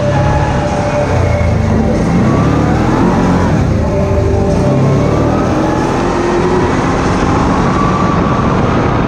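ATV engine running under way, its pitch rising and falling a little with the throttle.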